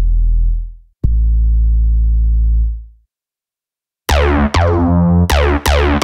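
ReFX Nexus 4 software synthesizer bass presets: a deep 808-style sub-bass note fades out, then a second one is held for about two seconds. After a short silence a bright acid bass preset plays four notes, each buzzy at the attack and quickly mellowing.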